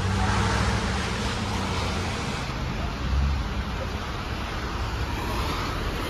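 Road traffic on a wet street: cars driving past with steady engine hum and tyre noise. A louder low rumble comes a little past the middle.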